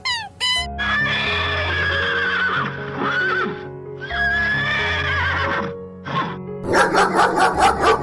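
Horse whinnying: two long, wavering whinnies, over soft background music. Near the end a dog starts barking in quick repeated barks.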